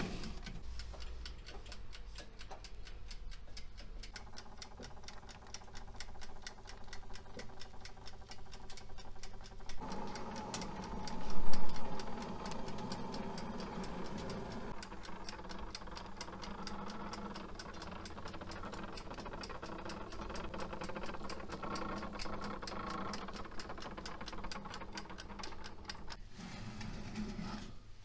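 Steady rapid ticking of a clock, several ticks a second, over a faint changing background, with one brief louder sound about eleven seconds in.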